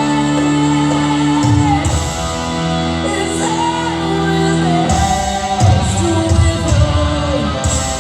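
Live rock band performing in a large hall, recorded from the audience: a female lead vocal sings over sustained guitar and bass chords, and drum hits come in about five seconds in.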